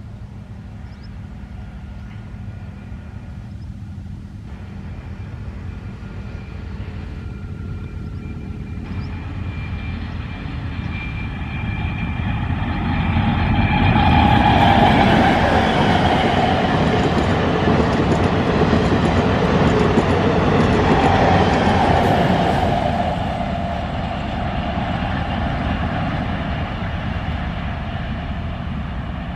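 Indian Railways ICF diesel-electric multiple unit (DEMU) approaching and passing: its diesel power car's engine running and wheels rolling on the rails. It grows louder, is loudest for about eight seconds as the train goes by, then fades as it runs away.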